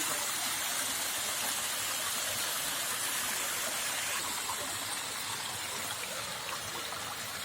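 Monsoon rainwater rushing steadily down a stream, a continuous hiss of flowing water.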